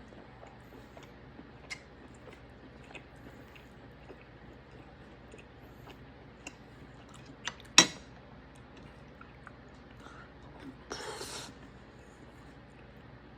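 A person eating steak: quiet chewing with scattered small clicks, one much louder sharp click about eight seconds in, and a brief noisy scrape about eleven seconds in.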